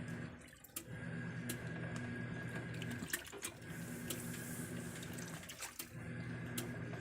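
Plenna washing machine agitating a load: the motor hums in runs of about two and a half seconds, broken by short pauses as the agitator reverses, with water sloshing and light clicks over it.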